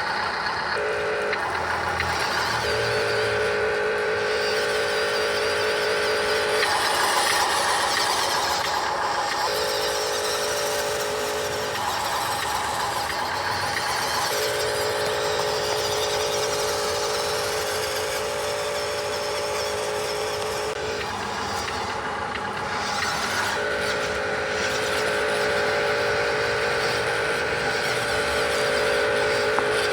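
Radio-controlled truck running, with a steady mid-pitched whine that cuts in and out in stretches of a few seconds over a continuous noisy background.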